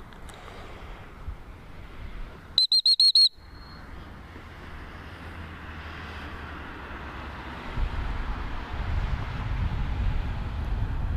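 A dog-training whistle blown once, about two and a half seconds in: a short, warbling high trill lasting under a second. Wind rumbles on the microphone and grows stronger over the last few seconds.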